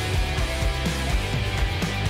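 Rock background music with guitar over a steady, fast drum beat.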